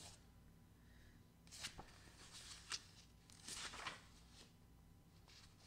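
Faint rustling of paper as book pages are turned and a paperback is handled, in several short spells with one small click partway through.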